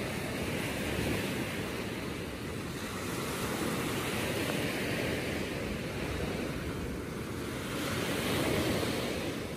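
Small ocean waves breaking and washing up a sandy beach, the surf swelling and easing about every three seconds.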